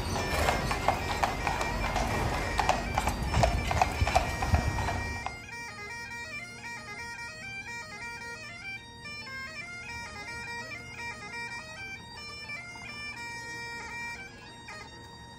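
Bagpipe music with steady drones, joined for the first five seconds or so by the clip-clop of carriage horses' hooves and street noise. About five seconds in the street sound drops away suddenly, leaving the bagpipe melody alone and quieter.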